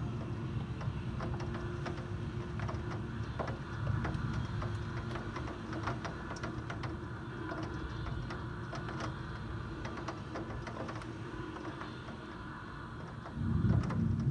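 Thunderstorm wind and rain heard from a high-rise window: a steady low rumble with many scattered light ticks, like raindrops striking the glass.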